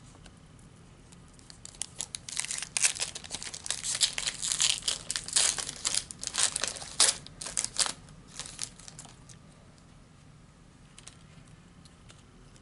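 Foil wrapper of a Panini Prizm trading-card pack being torn open and crinkled, a dense run of crackling that starts about a second and a half in and stops about nine seconds in.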